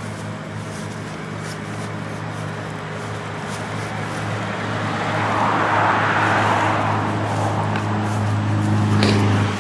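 Minivan's 3.5-litre V6 idling, a steady low hum. A rush of noise swells and fades over a few seconds in the middle.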